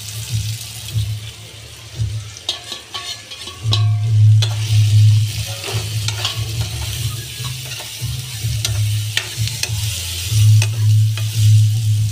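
Sliced onions, tomatoes and green capsicum sizzling in oil in a steel wok while a spatula stirs and scrapes them around the pan, with a low hum underneath that swells about four seconds in and again near the end. The vegetables are being lightly sautéed before the spices go in.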